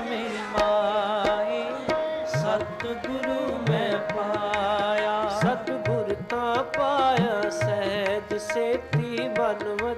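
Sikh kirtan: a gurbani hymn sung over a steady drone, with tabla drumming.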